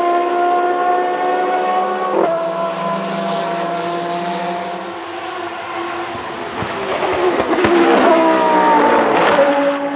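Dallara SP1 LMP900 prototype's Judd GV4 4.0-litre V10 at high revs, accelerating away with a quick upshift about two seconds in and then fading. Near the end the car passes close by, louder, with the engine note falling as it goes past.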